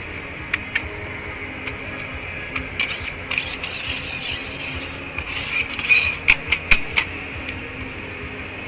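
Metal spatula scraping across a hot flat-top griddle and tapping against it, with rasping bursts in the middle and a quick run of sharp taps later on, over the hiss of food frying.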